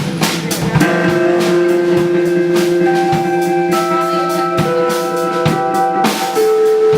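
Live band music: long held keyboard chords that change every second or so, over a steady drum-kit beat of about one hit every three-quarters of a second.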